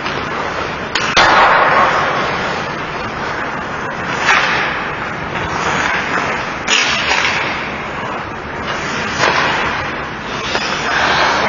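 Ice hockey play on the rink: skate blades scraping the ice in hissing swells, with a few sharp cracks of sticks and puck, the loudest about a second in and again a little past halfway.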